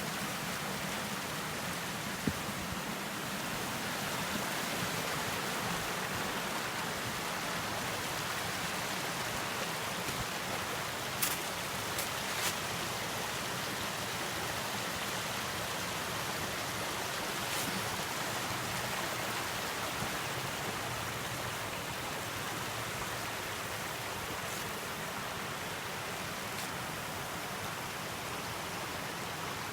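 Steady rushing of a creek cascading over rocks, with a few brief sharp clicks partway through.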